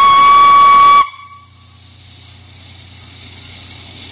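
Steam whistle of the 1948 Anglo-Franco-Belge narrow-gauge steam locomotive No. 362, blowing one steady high note that cuts off sharply about a second in. Steam then hisses out low around the cylinders, growing louder as the locomotive gets ready to pull away, over a low steady hum.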